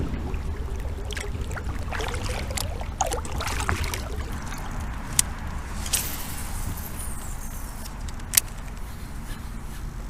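Small sounds from a fishing kayak on the water: a steady low rumble under scattered light clicks and knocks, with sharper knocks about five, six and eight seconds in.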